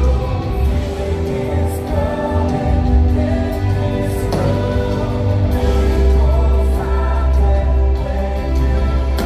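Christian worship music: a group of voices singing over a band with a heavy, steady bass.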